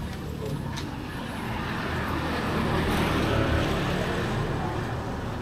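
Road traffic passing alongside: a steady rumble and tyre hiss of vehicles that swells a little around the middle as a vehicle goes by.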